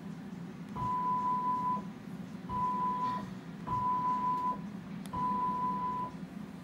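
Small CNC router's stepper motors whining at one steady pitch four times, each about a second long, as an axis is jogged with presses on a wireless remote. A steady low hum runs underneath.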